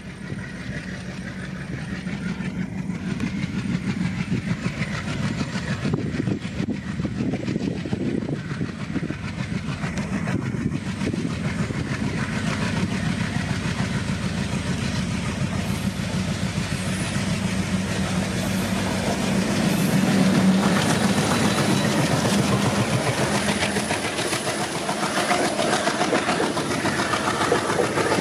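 Twin WDM3D ALCO diesel locomotives, 16-cylinder ALCO engines, chugging hard under load as they pull away from a station with an express train. The sound grows louder as they come past, loudest about two-thirds of the way through. Near the end the coaches roll by with wheels clicking over the rail joints.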